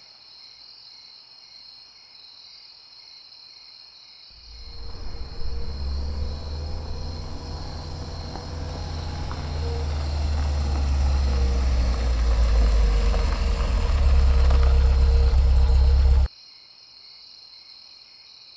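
Crickets chirping steadily, then about four seconds in a car's engine comes in, a low rumble growing louder as the car approaches, before it cuts off suddenly near the end and the crickets carry on.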